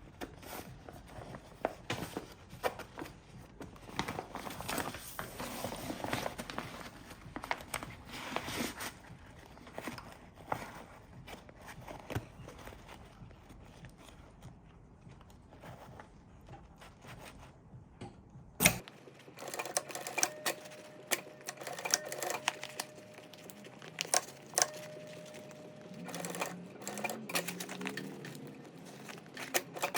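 Sewing machine stitching a seam through stiff bag fabric in runs, with sharp clicks from the machine and fabric handling. The sound changes abruptly about two-thirds of the way in, followed by a steady hum for a few seconds.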